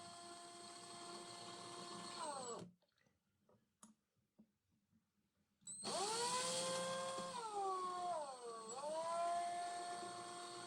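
Small electric power-tool motor whining at steady speed, spinning down to a stop, then starting up again about three seconds later. Its pitch sags twice under load before recovering.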